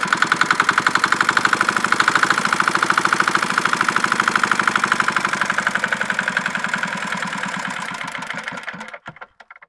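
Yanmar A2 single-cylinder diesel engine running with a steady rapid chug of about ten firing pulses a second, then slowing over the last few seconds and coming to a stop near the end.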